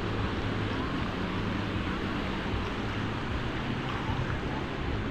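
Ocean surf breaking along a sandy beach, a steady wash of noise, with wind rumbling on the microphone.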